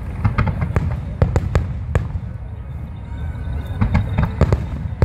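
Fireworks bursting: an irregular run of sharp bangs and crackles over a steady low rumble, thinning out in the middle and thickening again near the end.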